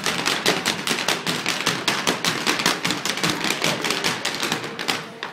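Irish dance hard shoes striking a wooden floor as several dancers step in unison, a fast run of sharp rhythmic taps and stamps at several a second.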